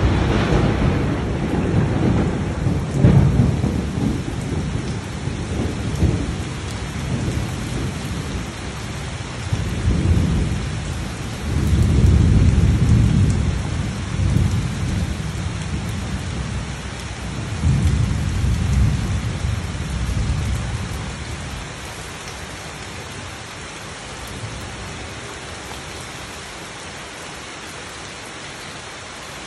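Heavy rain falling on garden foliage and wet ground, with thunder rolling in several long low rumbles, the loudest about twelve seconds in. The thunder dies away after about twenty seconds, leaving only the steady hiss of rain.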